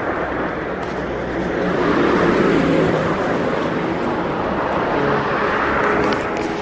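A motor vehicle's engine and tyres passing close by on the street, swelling to its loudest about two to three seconds in, with a second rise near the end.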